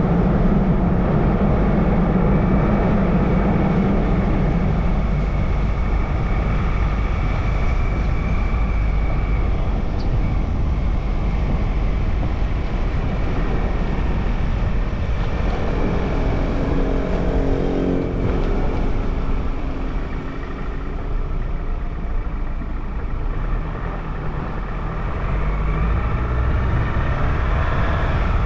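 Car driving along a road: steady engine and road noise, with a pitched drone swelling for a few seconds just past halfway.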